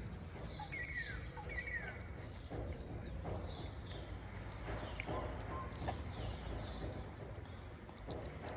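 Cat eating wet food close up: repeated soft wet chewing and smacking clicks, about two a second. A few short bird chirps come about a second in.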